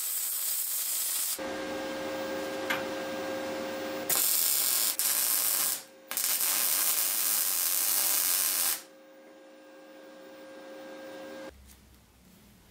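MIG welder arc crackling and hissing in several bursts of a few seconds each, with a steady hum from the welding machine in the gaps between bursts. The welding stops near the end.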